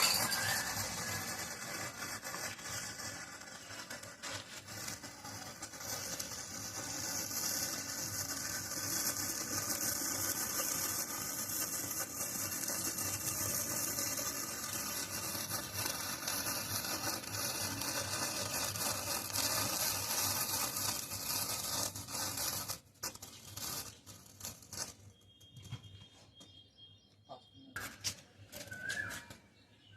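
Matchstick chain reaction burning: a continuous fizzing and crackle as match heads flare one after another, which stops suddenly a little over 22 seconds in, leaving scattered faint crackles. Birds chirp faintly near the end.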